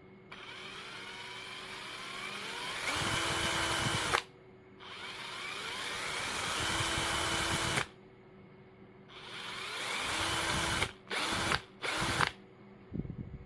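KIMO 20V cordless drill driver's motor run three times on its variable-speed trigger, each run rising in pitch and loudness as it speeds up and then stopping abruptly. It finishes with a few short blips of the trigger near the end.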